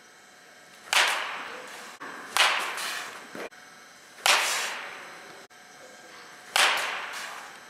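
Baseball bat striking pitched balls in a batting cage: four sharp cracks about two seconds apart, each echoing and fading over about a second.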